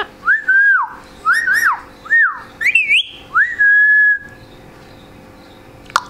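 Indian ringneck parakeet whistling about half a dozen clear sliding notes, each rising and falling, with a few sharp chirps mixed in. It ends on one longer held note about four seconds in.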